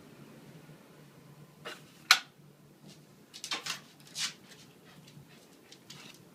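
Short scuffs and rustles of a small dog searching on a tiled floor beside a shower curtain, over a low steady hum. A sharp click about two seconds in is the loudest sound, followed by a cluster of scuffling about a second later.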